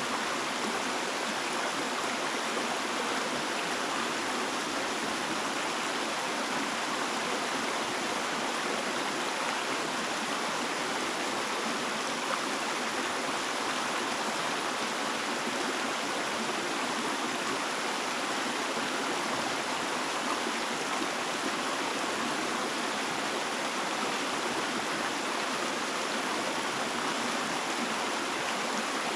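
Running water of a stream, a steady rush that neither rises nor breaks.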